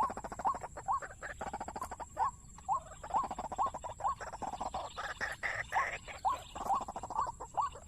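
Waterhen calls: a run of short rising croaking notes, roughly two a second, over a fast rattling pulse.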